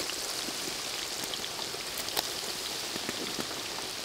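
Food deep-frying in a wok of hot oil: a steady sizzle with many small crackles and pops.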